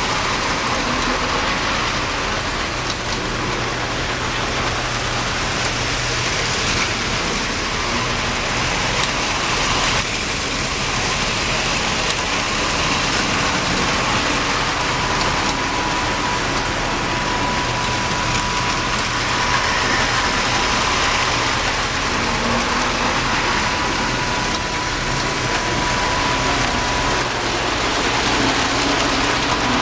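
Several Lionel postwar O27 toy trains running on three-rail track: a steady rolling rumble and motor whir, with a thin steady tone that comes and goes.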